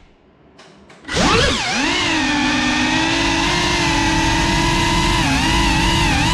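GEPRC CineLog35 FPV quadcopter's brushless motors and propellers, nearly quiet for about a second, then spinning up sharply with a rising whine as the throttle is opened. They settle into a steady high-pitched whine of several tones, with a brief dip in pitch near the end.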